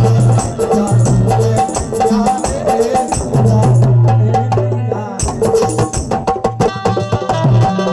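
Bundeli folk music played without singing: a harmonium holding repeated notes over fast hand-drum and rattle percussion. There is a short lull a little past halfway, then a quick run of strikes.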